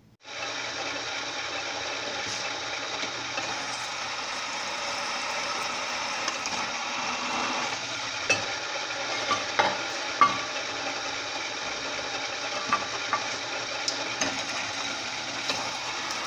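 Electric drill running steadily as a 5/16-inch bit bores into a mild steel block, with scattered sharp ticks and brief squeaks from the cutting.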